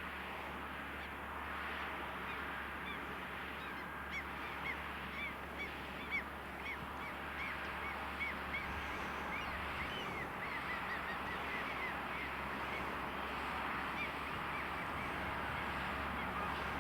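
A flock of gulls calling: many short, arched cries overlapping, thickest in the middle, over a steady low rumble from the ploughing tractor.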